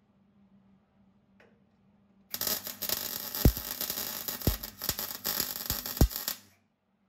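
MIG welding arc crackling for about four seconds on sheet-steel floor panel, with five sharp pops, starting about two seconds in and cutting off suddenly near the end.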